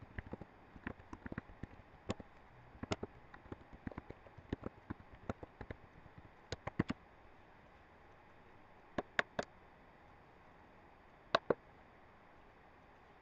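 Typing on a computer keyboard: a run of irregular key clicks for about seven seconds. After a pause come three separate mouse clicks close together, then a quick double click.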